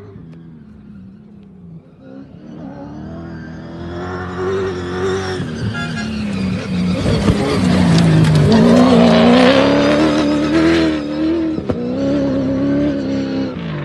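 Rally car's engine at full throttle, growing louder as the car approaches and passes close. Its note dips and climbs again partway through, then fades near the end as the car pulls away.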